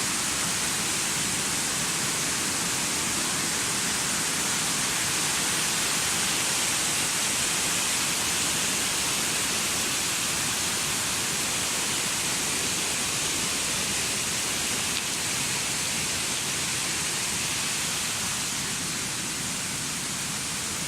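Waterfall: falling water rushing in a steady, even roar, easing slightly near the end.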